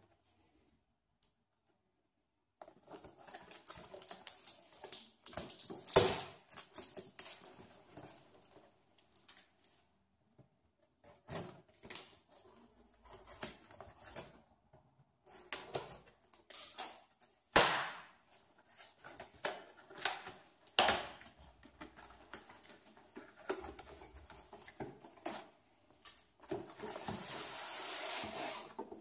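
Cardboard tripod box being handled and opened: irregular rustling and scraping of cardboard with a few sharp taps and knocks, starting after a couple of seconds of near silence. Near the end comes a longer, steadier rustle as the tripod in its fabric bag slides out of the box.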